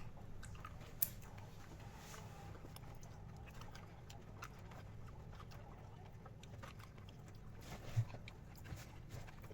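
Quiet eating sounds: faint chewing and small clicks over a low steady hum, with a sharp click about a second in and a soft thump near eight seconds.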